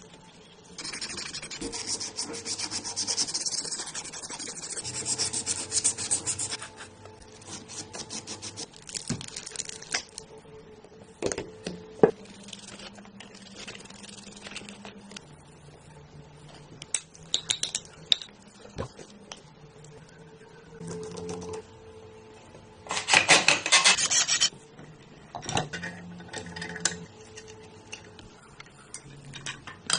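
Scraping and rubbing in bursts of a few seconds, like filing or sanding by hand, with a few sharp knocks about eleven and twelve seconds in; the loudest scraping comes a little after twenty seconds in.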